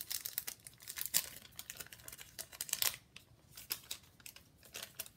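A small paper envelope crinkling and rustling in the fingers as it is opened and handled, in a quick, irregular run of crackles.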